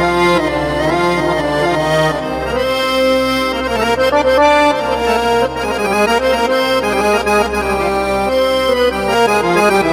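Yamaha PSR-A5000 keyboard playing a sampled Arabic accordion voice: a flowing melody of quick notes over a steady low bass.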